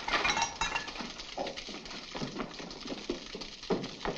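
Lengths of metal pipe clanking together and hurried footsteps on wooden stairs: an irregular run of knocks and clatters.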